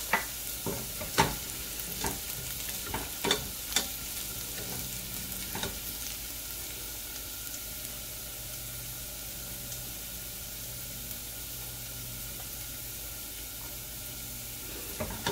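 Chopped garlic sizzling in hot vegetable oil in a pot, a steady frying hiss. During the first six seconds or so a utensil knocks and scrapes against the pot several times as the garlic is stirred. After that only the sizzle goes on.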